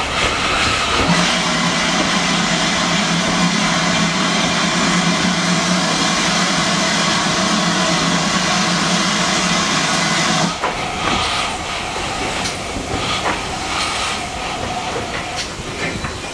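Steam locomotive letting off steam: a loud, steady hiss that cuts off suddenly about ten seconds in. A quieter hiss with a few light clicks follows.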